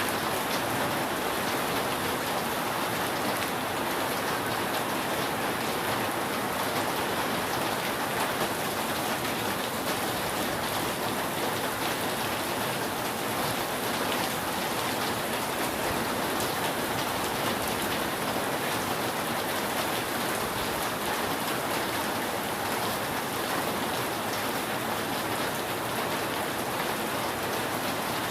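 Steady, heavy rain falling on a roof, an even wash of drops with no thunder.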